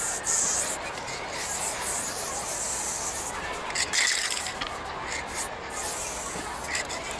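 Paint being sprayed: a hissing spray in several bursts with short breaks between them.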